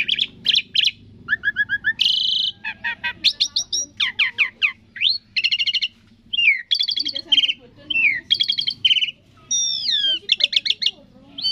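Asian pied starling (jalak suren) singing a long, varied song: clear whistles, quick runs of sharp chirps and slurred notes that glide down, one after another with short pauses.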